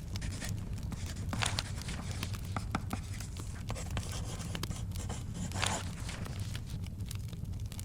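Fire crackling, with scattered sharp pops over a steady low rumble, and two short rustles of paper, about one and a half seconds in and again near six seconds, as pages are turned.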